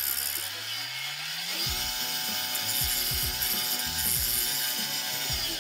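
A gouge cutting the face of a large wooden platter spinning on a wood lathe, a steady rough shaving noise with the lathe's hum under it, as the front is trued up. One tone rises over the first second and a half, then holds steady until the sound cuts off suddenly at the end.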